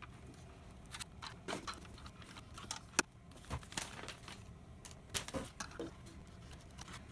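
Scattered light clicks and taps of a 2.5-inch SATA SSD and a mini PC's metal drive carriage being handled and fitted together, with one sharper click about three seconds in.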